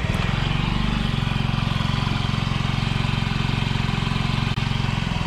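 2009 Honda Metropolitan scooter's 49cc four-stroke single-cylinder engine catching right at the start and settling into a steady, even idle. This is the test run on a freshly replaced fuel pump.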